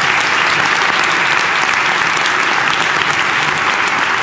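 An audience of a few hundred people applauding, steady dense clapping.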